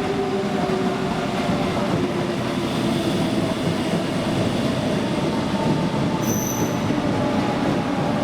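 CP series 2300/2400 electric multiple-unit suburban train running at the platform, a steady rumble with held motor tones that slide slightly lower. A brief high-pitched squeal comes about six seconds in.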